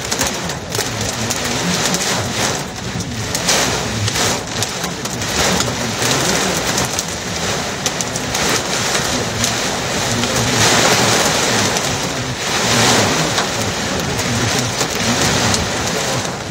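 Heavy wind-driven rain pounding on a car's windshield and roof in a severe thunderstorm. The downpour is loud and unbroken, and swells several times as gusts drive sheets of rain against the glass.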